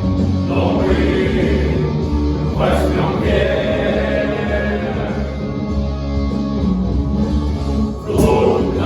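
Music: a men's choir singing long held notes over an accompaniment with a strong, steady bass, with a brief dip and a new chord about eight seconds in.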